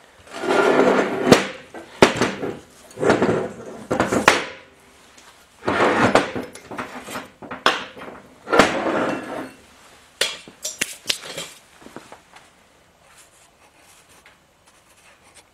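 Metal scraping and clinking as a large intake valve is worked out of its guide in a Willys F-head cylinder head and the parts are handled. There are several rasping scrapes with sharp clinks between them, and the sounds thin out to a few faint clicks after about ten seconds.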